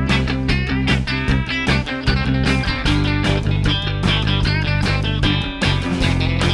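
Country-rock song in an instrumental break: a guitar lead with bending notes over bass and a steady drum beat.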